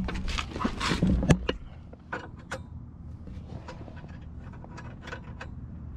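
Light metallic clicks and knocks of a hand wrench being tried on a nut, with a cluster of louder knocks in the first second and a half, then sparser light clicks.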